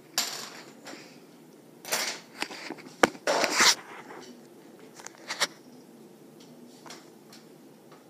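Hunter ceiling fan running, a faint steady whir under several short loud bursts of noise and a sharp click about three seconds in.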